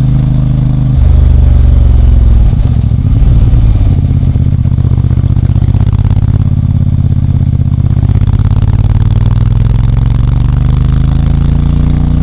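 CFMOTO 450MT motorcycle's 449 cc parallel-twin engine running, its note shifting abruptly about a second in and wavering briefly, then holding steady before rising gradually in pitch near the end as the revs climb.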